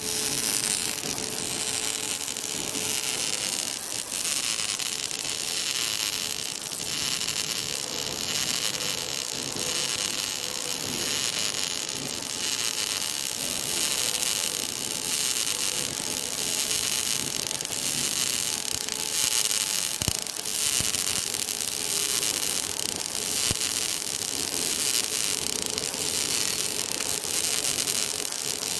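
Wire-fed welding arc of an automatic orbital pipe-welding carriage running a girth weld on a large-diameter steel pipe: a steady hiss with spatter, over a faint steady hum.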